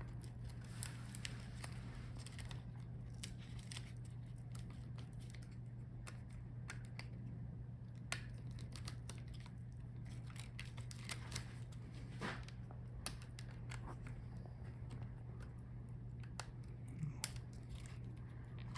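Faint clicks and scratchy handling sounds of laptop ribbon-cable connectors and their small locking clips being flipped open and the cables pulled free from a motherboard, scattered irregularly over a steady low hum.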